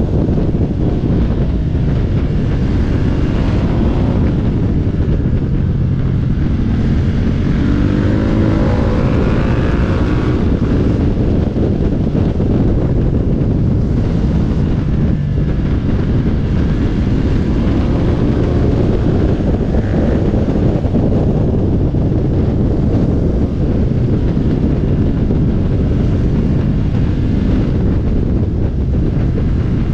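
Motorcycle engine running at speed under heavy wind rush on the microphone. The engine note rises as the bike accelerates, most clearly about eight seconds in.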